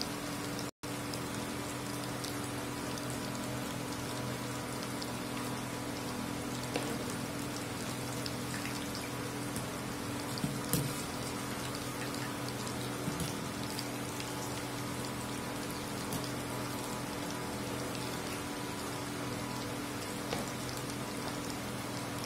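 Hot oil sizzling steadily as ivy gourd kebab pieces deep-fry in an iron kadai, with a few light clinks of the wire strainer against the pan around the middle.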